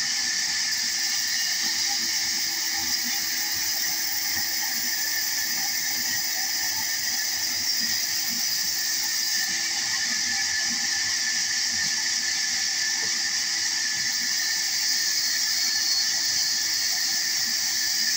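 Large vertical band saw running steadily while ripping a wooden plank lengthwise: a steady high hiss over a low hum.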